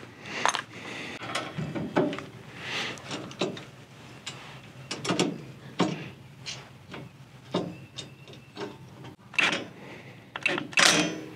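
Scattered metal clicks and knocks as a steel tractor side brush guard panel is handled and its bolts fitted and worked with a wrench, with some soft rustling in between.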